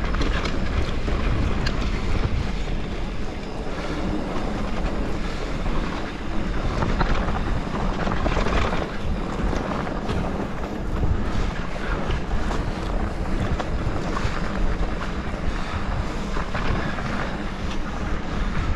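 Wind rushing over the microphone while a mountain bike rolls fast down a dry dirt singletrack, its tyres on dirt and gravel, with small rattles and knocks from the bike over the bumps.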